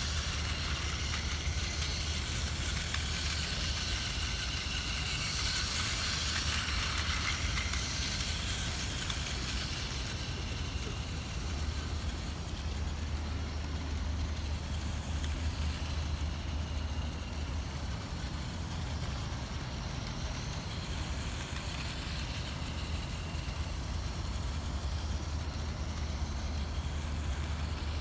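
Steady low rumble of road traffic, with the thin whir of a battery-powered Plarail toy train running round its plastic track above it. The higher whir is strongest about five seconds in and fades near the end.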